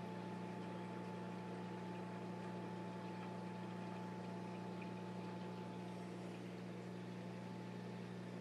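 Steady low hum of a reef aquarium's pumps, with a faint hiss of circulating water.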